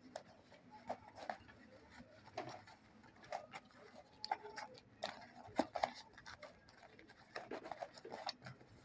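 Faint handling noise of a fabric pouch being folded and pressed by hand on a wooden tabletop: irregular soft rustles and small knocks, coming in uneven clusters.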